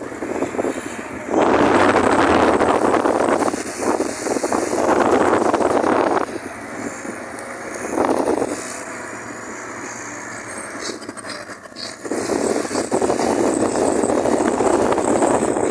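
A motor vehicle running, loud in long surges with quieter stretches in between.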